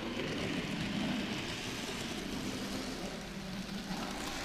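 Model Stephenson's Rocket train running on the layout track: the small electric motor whirring steadily with the wheels rolling over the rails.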